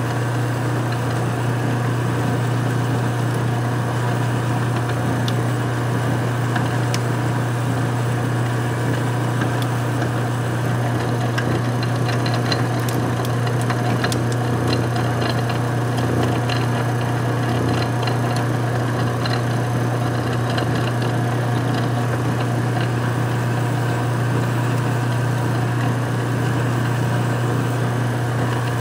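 Metal lathe running steadily while a twist drill held in the tailstock chuck bores into the spinning workpiece: a constant motor hum, with faint light ticks through the middle stretch.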